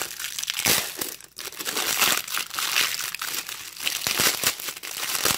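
Clear plastic bag crinkling and crackling as it is torn and pulled off by hand, with a brief lull about a second in.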